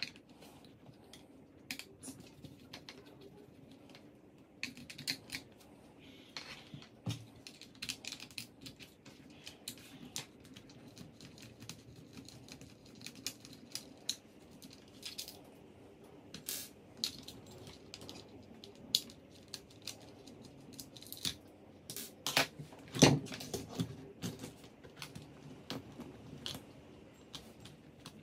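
Hands and small tools working on an RC car chassis to remove its servo: irregular light clicks, taps and clatters of screws, plastic parts and a screwdriver, with a louder knock about 23 seconds in.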